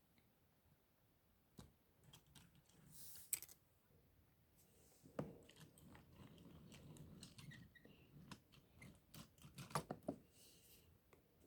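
Faint clicks, taps and light scraping of toy trains and trucks being pushed along the track by hand, with the sharpest clicks about three seconds in and again around ten seconds.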